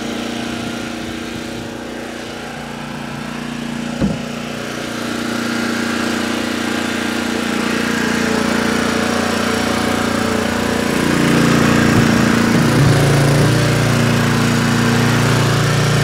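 Portable Honda EG2500 generator's engine running after a cold start; the owner says the choke is why it isn't running smoothly. There is a single knock about four seconds in, and the engine grows louder and deeper about eleven seconds in.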